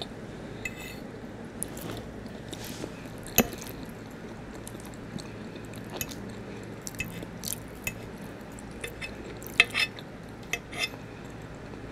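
Metal fork clicking and scraping against a plate while scooping up macaroni and cheese and corn, with soft chewing between. The sharpest clicks come about three seconds in and again near the end.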